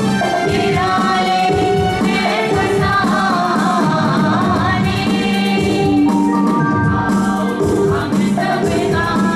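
A small mixed group of young women and a young man singing together into microphones, amplified through a PA system.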